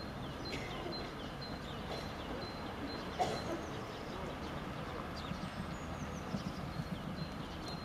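Outdoor street ambience: a steady low hum of road traffic with small birds chirping and a faint high pip repeating about twice a second. A single short knock about three seconds in.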